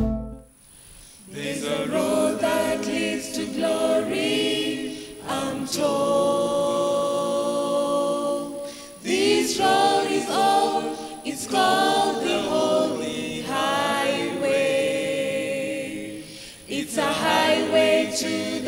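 A small choir singing a gospel hymn a cappella, several voices together in sung phrases with short breaths between them. The singing begins about a second in, after a brief silence.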